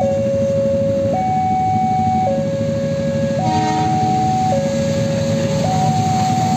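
Railway level-crossing warning alarm sounding a steady two-tone signal, switching between a lower and a higher tone about every second, over a low, steady rumble as a train approaches the crossing.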